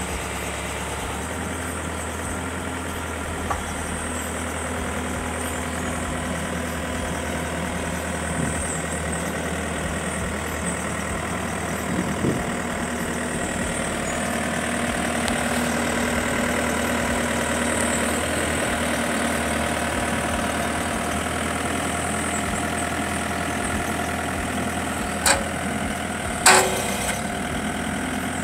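Bobcat 331 mini excavator's diesel engine running steadily, getting a little louder in the middle. Near the end there are two sharp knocks, the second the loudest.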